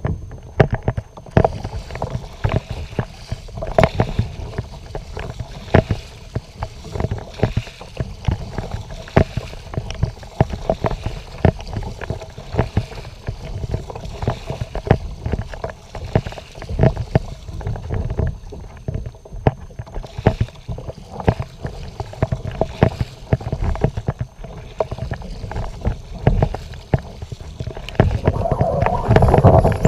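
Sea water slapping and splashing against a moving kayak's hull on choppy water, with irregular knocks and a faint steady hum, louder near the end.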